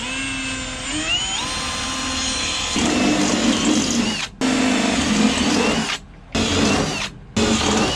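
Milwaukee M18 Fuel cordless drill boring holes in a tractor's sheet-steel fender. The motor whines and rises in pitch about a second in. It then cuts into the metal in four runs with short pauses between them.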